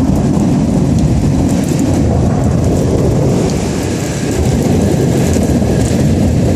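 Heavy downpour of rain, under a loud, deep, steady rumble.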